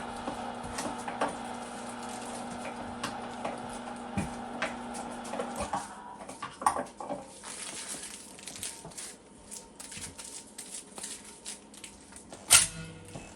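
Electric meat grinder motor running with a steady hum, switching off about halfway through; after it stops, clicks and clatter of utensils being handled, with one loud knock near the end.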